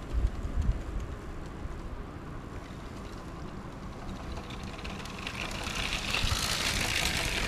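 A LEGO train's motor and wheels running along plastic track, heard from a camera riding on the train, with a low steady rumble. Two knocks come in the first second, and a hiss swells over the last two seconds.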